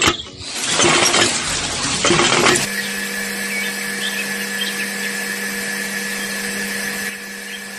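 Handle of a small homemade hand water pump being worked, giving a quick, irregular clatter of knocks and rattles. After about two and a half seconds this gives way to a steady, even hum with faint chirps above it.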